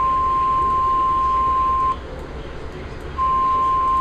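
Emergency weather alert warning tone, a single steady 1050 Hz tone of the kind NOAA Weather Radio sends before a warning; it cuts off about two seconds in and starts again about a second later.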